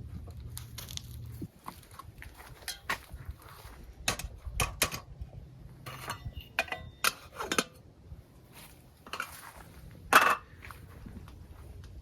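Camp cookware clinking and knocking as a pot of water is handled and set up on a camp stove for heating: a string of short, separate metal knocks and clicks, with one louder clatter about ten seconds in.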